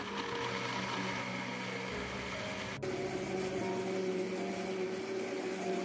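Countertop blender motor running steadily at speed, grinding soaked peanuts with water into a smooth liquid. There is a momentary break in the sound about three seconds in.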